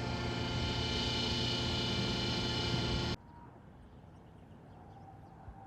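Steady engine drone, unchanging in pitch, that cuts off abruptly about three seconds in. A quiet outdoor background with faint bird calls follows.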